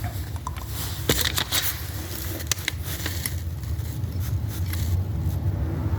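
Scattered light clicks and taps from handling small metal tools and distributor parts, over a low steady hum.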